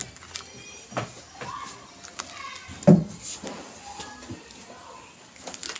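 Plastic bag of popcorn kernels handled and turned over, crinkling with scattered clicks, and a dull thump about three seconds in.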